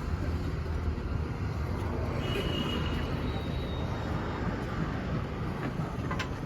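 Steady low background rumble, with a couple of short, sharp clicks near the end.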